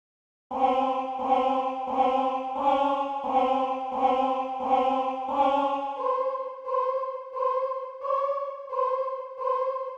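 Intro of a trap song: a sustained choir-like synth chord pulsing in a steady rhythm. Its low note drops out about six seconds in.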